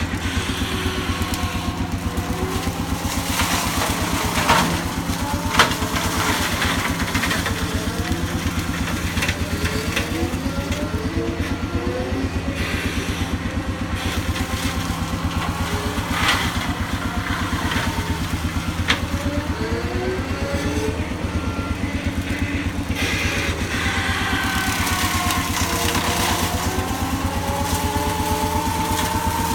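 Skid steer engine running steadily under load, with a whine that rises and falls and a few sharp cracks.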